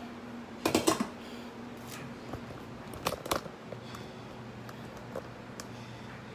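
Light clicks and clatters of objects being handled on a kitchen counter, in two short clusters about a second in and around three seconds in, with a few single ticks after, over a steady low hum.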